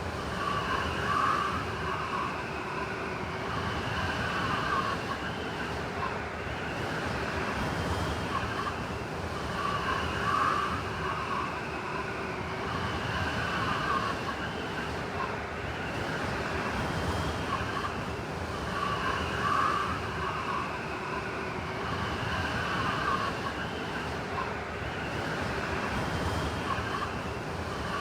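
Blizzard wind howling over a steady rush of blowing noise, with a whistling gust that swells and fades about every nine seconds.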